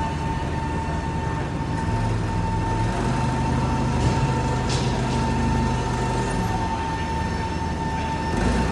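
Heavy machinery running steadily, a low hum under one constant high whine.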